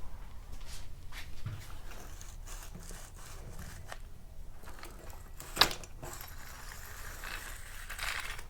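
Handling noise of trimmer parts and hand tools being worked on a bench: scattered small clicks, scrapes and rustles, with one sharp clack about five and a half seconds in.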